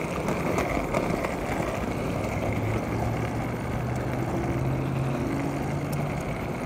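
Skateboard's light-up wheels rolling over asphalt: a steady, rough rolling noise. A faint low hum joins about halfway through and rises slightly in pitch near the end.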